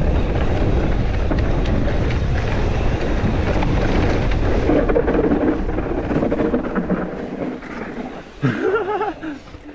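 Wind buffeting the camera microphone together with tyre and trail rumble as a Megatower mountain bike rides downhill on a forest trail. The rumble eases off after about seven seconds, and a short voice sound comes near the end.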